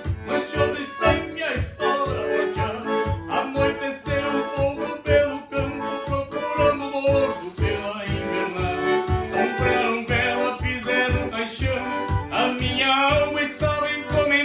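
Bandoneon playing a lively southern Brazilian folk melody in sustained reedy chords, over an accompaniment with a steady bass pulse of about three beats a second.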